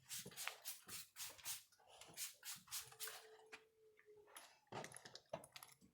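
A hand trigger sprayer puffing fine mist in quick faint squirts, about ten short hissing bursts with clicks. It is spraying hypochlorous acid disinfectant onto surfaces.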